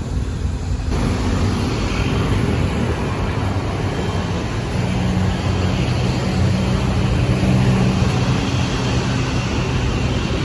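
Jet airliner engine noise: a steady rumble with droning tones, growing slightly louder toward the end. The sound changes abruptly about a second in.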